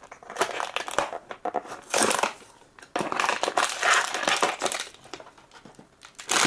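Blind-box packaging crinkling as it is handled and opened, in several rustling bursts with short pauses between them.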